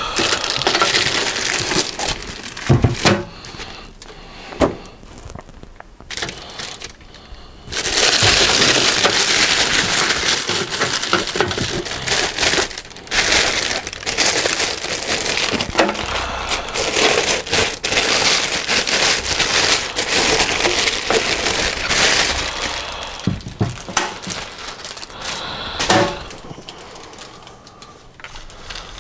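Knocks and scraping as foam packing is pulled off, then a long stretch of loud crinkling of a thin plastic bag as a bench power supply is worked out of it. A few sharp knocks follow as the unit is handled and set down.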